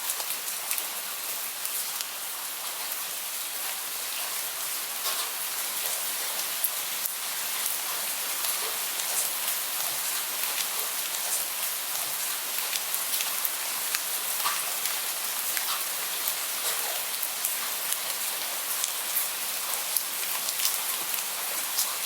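Steady rain: a dense, even hiss of rainfall with many separate drops ticking sharply on a hard surface.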